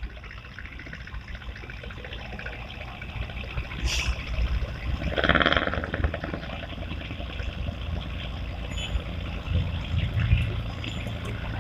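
Water trickling and pouring over a steady low rumble, with a sharp click about four seconds in and a brief louder rush of noise just after.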